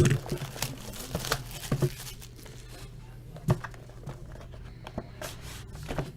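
Plastic shrink wrap on a sealed box of trading cards being torn open and crinkled, in a run of irregular crackles and snaps.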